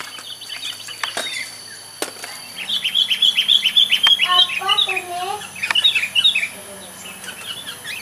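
Sooty-headed bulbuls calling: after a few faint clicks, a run of rapid high chirps starts about two and a half seconds in, with some lower warbled notes mixed in, as two birds scuffle with flapping wings. The calls fade out near the end.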